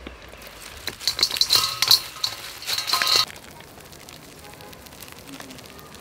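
Crispy deep-fried tiny frogs poured into a stainless steel bowl, rattling and clinking against the metal for about two seconds, starting about a second in.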